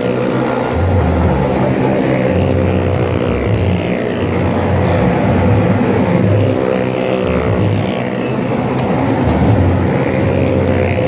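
Car and motorcycle engines running hard as the vehicles circle the vertical wall of a well of death, swelling and easing every couple of seconds as they go round.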